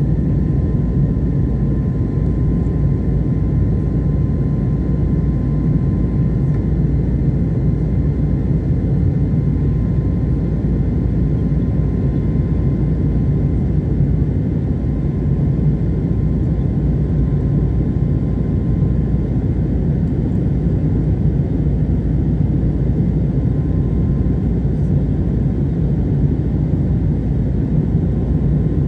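Steady cabin noise of a jet airliner climbing after takeoff, heard inside the cabin: a low rumble of engines and rushing air with a faint steady whine above it.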